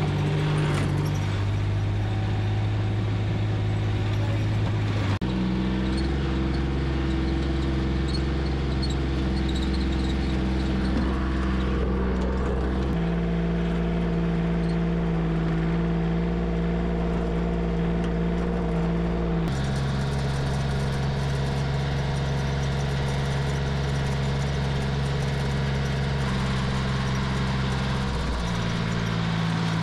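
Three-cylinder Yanmar diesel of a C25R rubber-tracked dumper running under way, its engine note stepping to a new pitch several times.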